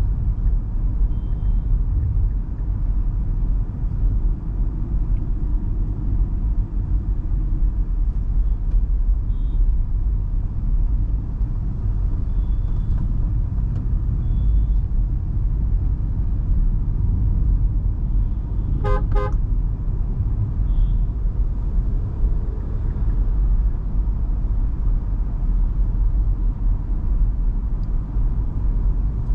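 Steady low road and engine rumble of an MG Hector Plus SUV driving in traffic. A car horn toots briefly about two-thirds of the way in.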